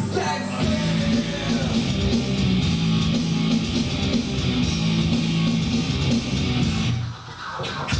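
Rock music with guitar, played through a loudspeaker driven by a 200-watt class-D amplifier on test. The music dips briefly about seven seconds in.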